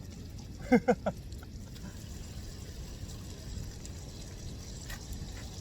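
Three quick cries, each falling in pitch, about a second in, over a steady low wash of background noise that sounds like water.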